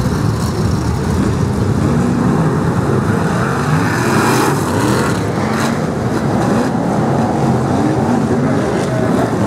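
A pack of BriSCA F1 stock cars' V8 engines running at racing speed, their pitch rising and falling as the drivers rev and lift, with a brief hiss about four seconds in.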